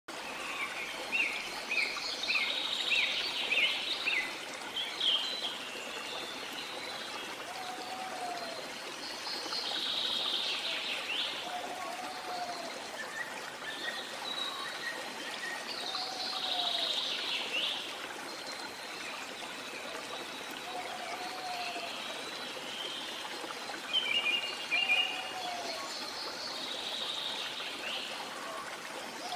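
Running stream with songbirds: a steady rush of water, and bursts of chirping and trilled song every few seconds. A lower, short arching call recurs several times.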